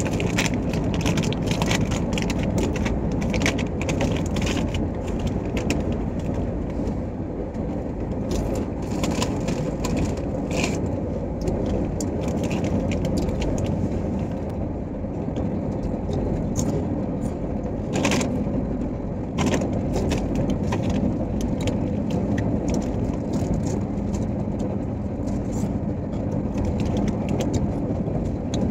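Steady running rumble of a moving passenger train heard from inside the coach, with occasional crinkles and crackles of a plastic snack packet being torn open and handled.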